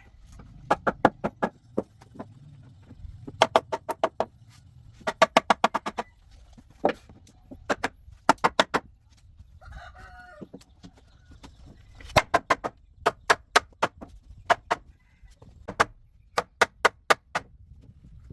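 Hammer blows landing in quick runs of four to eight sharp, ringing strikes, about ten runs with short pauses between, as in driving nails into wood.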